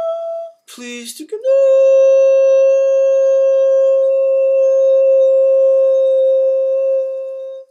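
A man's voice toning a long, high held note. One note ends about half a second in; after a quick breath a second, slightly lower note slides up into place and holds steady for about six seconds before stopping sharply.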